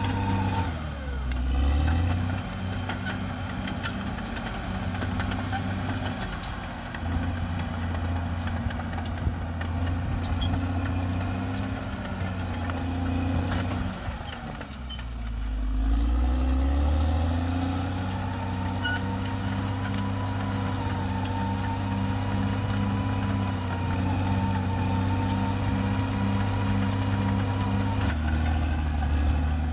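Caterpillar D6R XL bulldozer's diesel engine running under load. Its pitch sags low and climbs back twice, about a second in and again midway, as the engine lugs and recovers. A faint steady whine runs through the second half.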